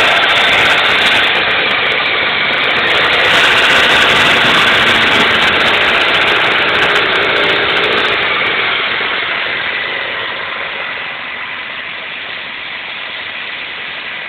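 Toyota 5S-FE 2.2-litre four-cylinder engine idling, loud and close, growing quieter through the second half.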